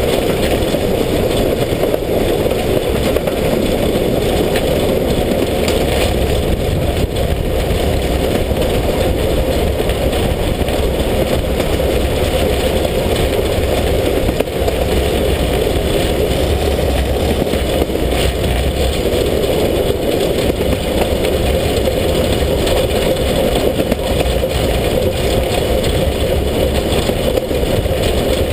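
Class 33 (2-10-0) steam locomotive S 33-037 under way, heard from right beside its running gear: a steady, loud mix of engine, wheels on rail and rattle, without a break.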